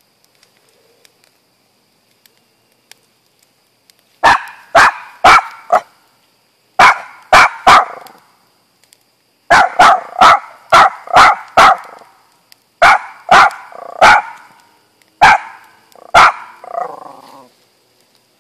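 Small black-and-white dog barking loudly in quick clusters of two to six sharp barks with short pauses between, starting about four seconds in; the last bark is drawn out and falls in pitch.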